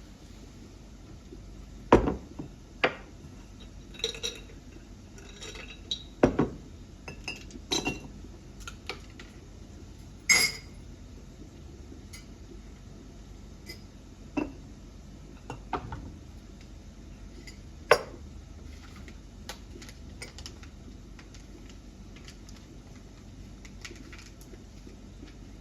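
Dishes and cooking utensils clinking and knocking together, about a dozen separate strikes at uneven intervals. The loudest come about two seconds in and near eighteen seconds, with one short ringing clink around ten seconds.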